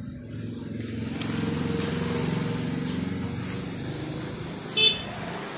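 A motor vehicle's engine passing by, its hum swelling to a peak about two seconds in and then fading. A short, high-pitched chirp stands out near the end.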